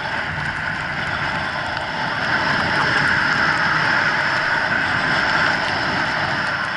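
Steady rush of wind over the microphone of a camera carried by a skier running downhill, with the hiss of skis on snow. It grows louder about two seconds in.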